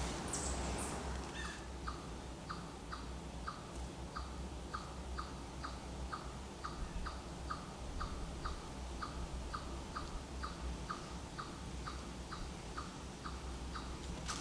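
A bird giving a short, falling call note over and over, evenly about twice a second, after a brief rustle at the start.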